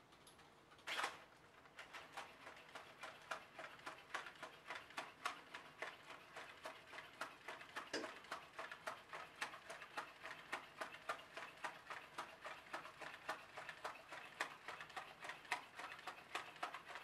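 Aldebaran Nao V4 humanoid robot walking on carpet: a quick, even run of clicks from its stepping feet and joint motors, starting about two seconds in, after one sharp knock about a second in.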